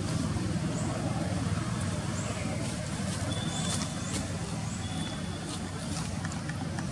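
A steady low rumble, with faint high chirps and ticks scattered over it.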